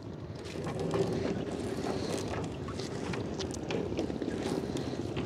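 Small boat's motor running steadily, with scattered light knocks and clicks throughout, likely from net and gear being worked on the boat.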